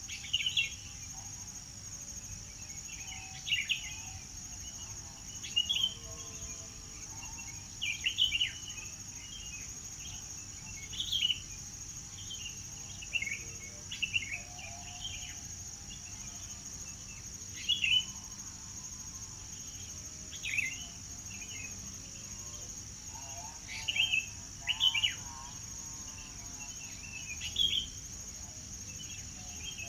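Songbirds chirping in short, sharp calls every second or two over a steady, high insect trill.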